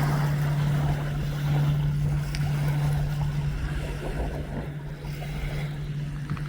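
Boat engine running with a steady low drone, slowly fading toward the end, with wind noise over the microphone.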